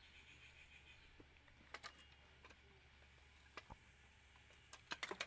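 Faint, scattered clicks and light knocks from handling a folded saree and a heavy black iron pressing it. They come in twos, with the loudest cluster just before the end.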